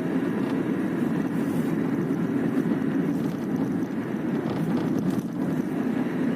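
Car cabin road noise while driving, with a few faint knocks from the driver's door, as if something is loose. The knocking comes from a window wind deflector whose adhesive tape has come unstuck, so it flaps in the wind.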